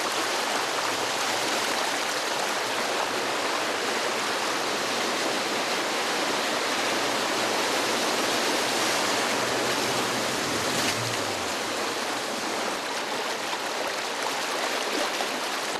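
Fast-flowing muddy floodwater rushing through a street: a steady, continuous rush of water.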